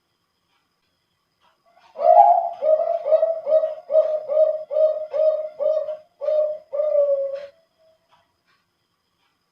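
Male zebra dove (perkutut, Bangkok contest line) singing one deep, full-voiced song phrase: starting about two seconds in, a quick run of about ten short coos that ends in a longer drawn-out coo, lasting about five and a half seconds.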